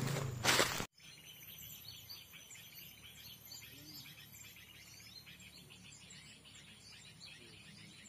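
For about the first second, footsteps crunch through dry leaf litter. Then the sound cuts out abruptly, and many small birds chirp: short, high, quick calls several times a second over a faint low hum.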